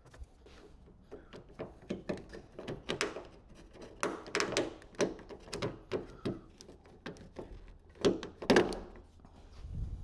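Irregular clicks and knocks of a Fiat Doblo's plastic outside door handle being worked free of its opening in the door panel. The two loudest knocks come about eight seconds in, as the handle comes out on its linkage rod.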